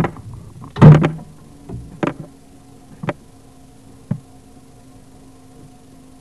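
Five knocks about a second apart, the loudest about a second in and each later one fainter, over a low steady hum.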